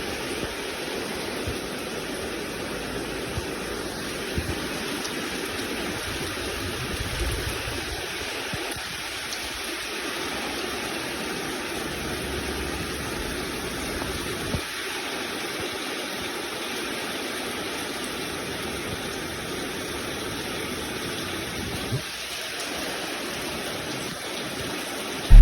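Steady rushing of water: an even hiss with a few faint clicks and no change in level.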